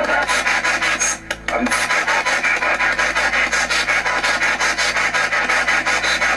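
Spirit box radio sweeping rapidly through stations: a fast, even chopping stream of static with snatches of broadcast, which the user listens to for voices of the dead. It briefly drops out about a second in.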